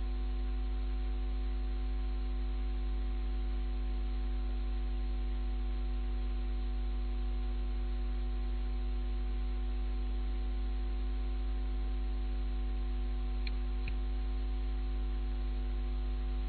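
Steady electrical mains hum with a stack of steady buzzing tones over an even hiss, the line noise of the recording. Two faint clicks come close together a few seconds before the end.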